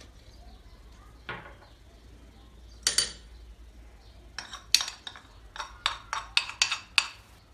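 Metal spoon clinking and scraping against a small ceramic bowl: a few single clinks, then a quick run of about a dozen sharp clinks in the second half as the bowl is tipped and its contents knocked out.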